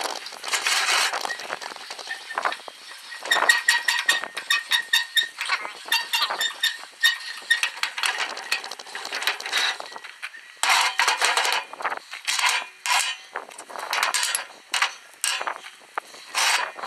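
Metal parts of an American No. 4 bench vise clanking and clinking as it is taken apart by hand, with irregular knocks, scrapes and short ringing notes as pieces are moved and set down.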